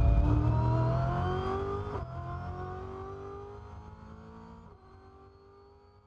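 Brabham BT62's V8 engine accelerating hard, its pitch climbing and dropping back twice as it shifts up. The sound fades steadily away to near silence.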